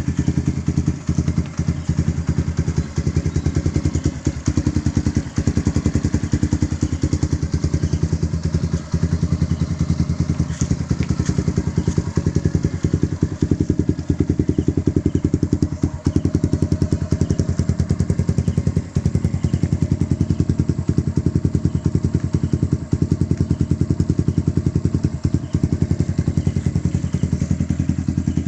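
Euro Flash 150 motorcycle engine idling steadily through an aftermarket SC pipe exhaust, a fast even run of exhaust pulses with no revving.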